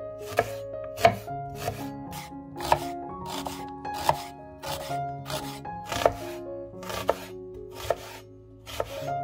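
Knife chopping on a cutting board in sharp, irregular strokes about once a second, over background music.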